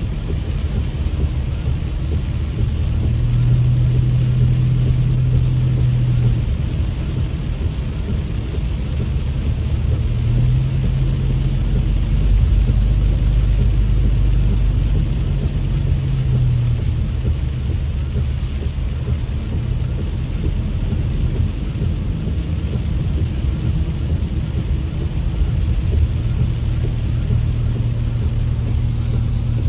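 A car driving on a wet road, heard from inside the cabin: a steady low rumble of engine and tyres with a hiss from the wet pavement. A low engine drone swells in and out several times.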